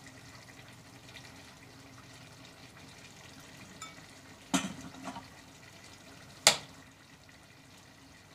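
Faint steady hiss of a turkey stew simmering in a wok, with two sharp clinks of a serving spoon against the dishes about two seconds apart, the second louder.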